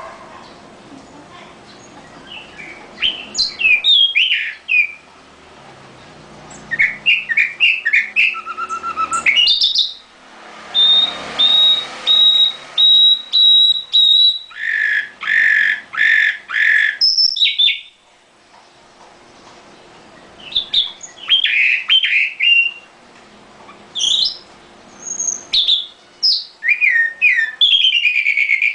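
Caged nightingale singing in separate phrases with short pauses between them, some phrases a run of rapidly repeated whistled notes, others fast varied twitters and slurs.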